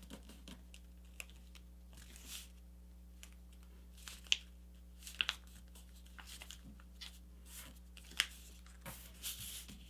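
Sheet of paper being folded and creased by hand: faint rustling and sliding, with short sharp crackles as the creases are pressed down, the sharpest about four, five and eight seconds in.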